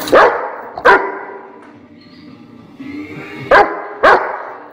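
A Rottweiler barking: two sharp barks in quick succession, a pause of about two and a half seconds, then two more.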